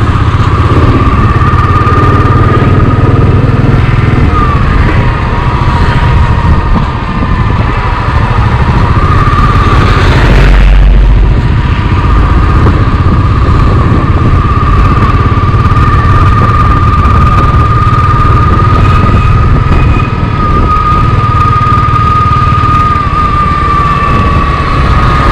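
Royal Enfield motorcycle running on the move, with a steady whine that bends slightly in pitch now and then over a heavy low rumble. A loud low surge comes about ten seconds in.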